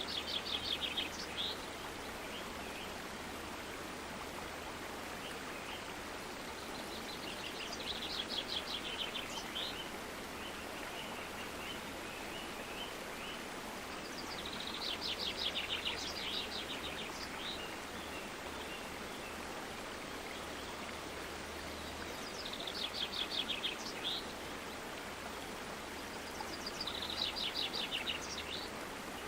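Steady rush of running water, with a songbird singing a short, fast trilled song five times, every five to eight seconds.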